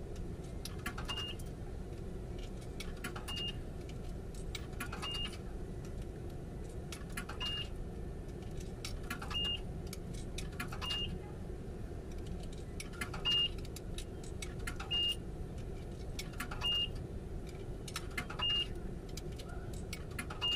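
Steady low rumble of an idling car heard from inside the cabin, with a short high-pitched beep repeating about every two seconds.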